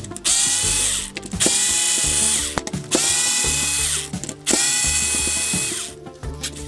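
Cordless drill/driver motor run up four times in quick succession, each burst rising in pitch as it spins up, then running steadily for about a second before stopping.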